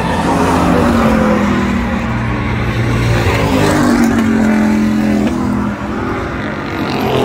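Pickup race trucks' engines running at racing speed on a short oval, passing close by. The engine notes slide down in pitch as they go by, once near the start and again about four to five seconds in.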